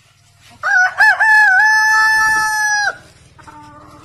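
A rooster crows once: one long call of about two seconds that wavers at the start, then holds steady and cuts off.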